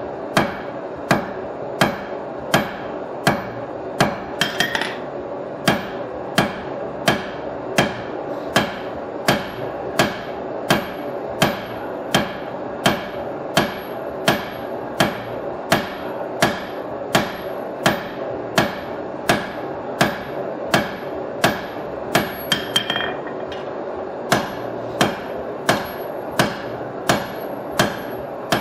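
Hand hammer striking red-hot steel on an anvil in a steady rhythm, about three blows every two seconds, forging a knife or chopper blade.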